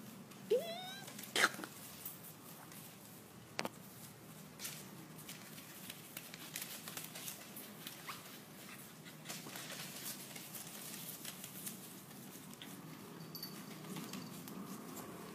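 A Pomeranian puppy gives one short rising yelp about half a second in. Then puppies scuffle on newspaper in a wire playpen: a sharp knock just after the yelp, another a couple of seconds later, and scattered light scratches and taps of paws.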